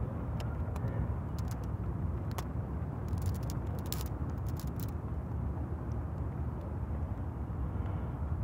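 Dry plant-fibre tinder nest rustling and crackling in the hands as it is folded around a glowing piece of char cloth, with a cluster of crackles between about one and five seconds in, over a steady low rumble.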